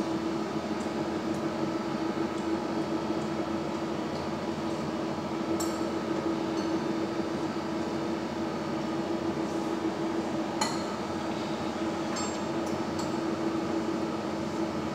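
A metal spoon and then chopsticks clink and scrape against a ceramic bowl while mixing beaten egg, giving a few sharp clinks about a third of the way in, around two-thirds of the way in, and several more shortly after. A steady hum runs underneath.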